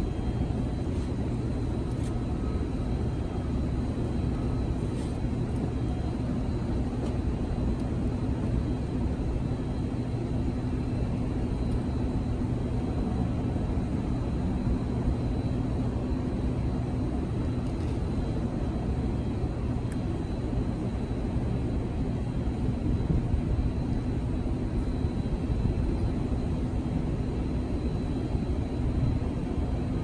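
Steady low rumble of outdoor city background noise, with a faint constant hum running through it; no single event stands out.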